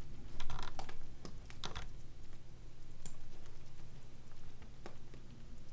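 Scattered clicks of a computer mouse and keyboard: a quick run of clicks in the first two seconds, then single clicks about three and five seconds in, over a faint steady low hum.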